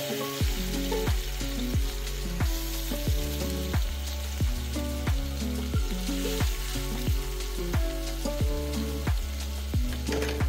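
Background music with a steady drum beat and bass, over the sizzle of whole prawns frying in oil in an iron wok.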